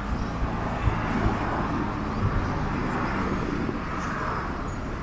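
Street noise with a passing vehicle: a rushing sound swells and fades over a few seconds above a steady low rumble.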